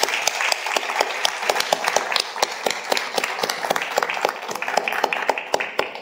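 Audience applauding: many hands clapping in a dense, steady patter that dies away at the very end.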